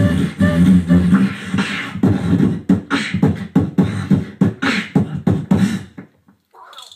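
Two beatboxers performing together into handheld microphones: a fast, dense run of percussive mouth strokes over a low humming bass. It stops abruptly about six seconds in.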